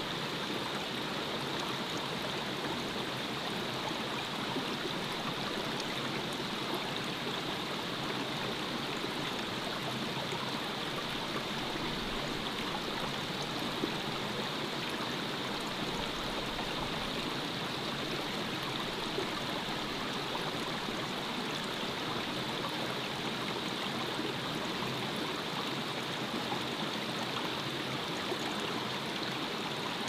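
A shallow, rocky forest stream flowing and trickling over stones: a steady, even rush of water that does not change.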